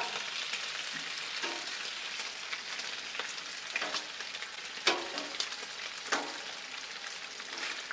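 Bacon strips sizzling on a Blackstone flat-top griddle: a steady frying hiss. Now and then there is a sharp click of the tongs against the steel top as strips are turned and moved, about five times.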